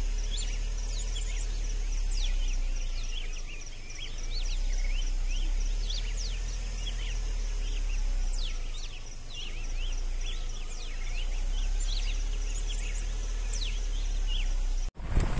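Outdoor nature ambience: many short rising bird chirps over a steady, pulsing insect trill, with a low rumble that swells and fades every few seconds.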